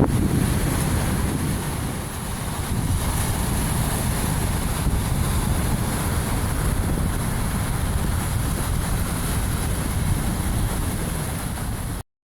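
Winter sea surf on a rocky coast with strong wind buffeting the microphone: a steady, heavy rushing noise that cuts off suddenly near the end.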